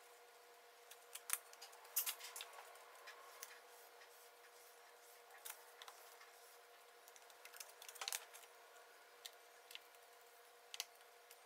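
Scattered small clicks and taps of sawn veneer pieces being handled and cut during marquetry assembly, over a faint steady hum.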